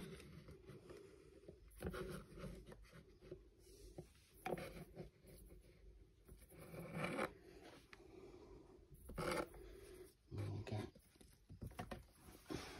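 Faint scraping and rustling handling sounds, a handful of short scrapes a second or more apart, as a tarantula is coaxed from its container into a new enclosure.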